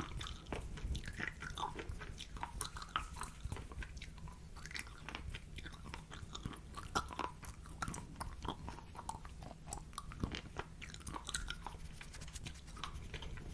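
Close-miked ASMR mouth sounds: many quick, irregular wet clicks and lip smacks, over a steady low hum from the microphone.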